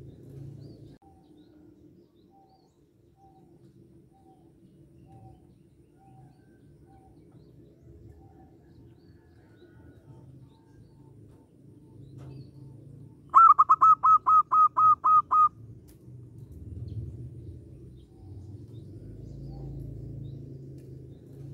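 Zebra dove (perkutut) cooing: a quick run of about nine short staccato coo notes lasting about two seconds near the middle, with faint bird chirps scattered in the background.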